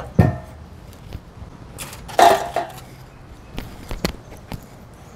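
Clanks of a steel barrel charcoal grill's lid and body being handled as the lid is shut. The loudest clank rings about two seconds in, and a few light metal clicks follow.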